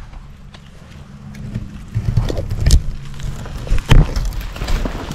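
Wind rumbling on the microphone, with rustling of brush or clothing and a few sharp knocks of handling, two of them loud near three and four seconds in.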